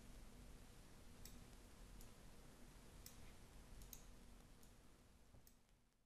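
Near silence with a handful of faint, scattered computer mouse clicks over a low steady hum.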